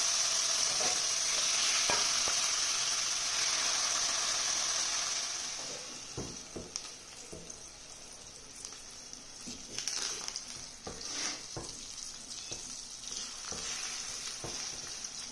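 Yogurt-marinated minced mutton (keema) frying in hot oil in a pan, with a loud sizzle for about the first five seconds that then settles to a quieter frying hiss. Scattered clicks of a spoon stirring in the pan follow.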